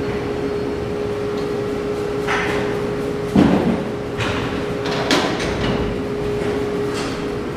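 Steady workshop background hum with one held tone, broken by a few clunks and clatters. The loudest is a thump about three and a half seconds in.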